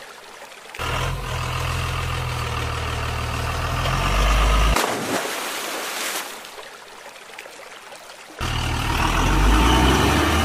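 Heavy truck engine sound effect running with a steady low rumble. It cuts in abruptly about a second in and cuts out near five seconds, leaving a quieter hiss, then cuts in again about eight seconds in.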